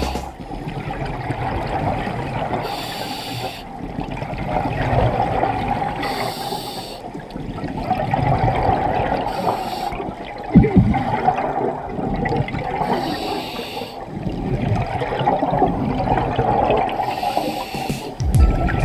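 Scuba regulator breathing heard underwater: a burst of bubbling hiss every three to four seconds over a steady watery rumble. A single sharp knock sounds about halfway through.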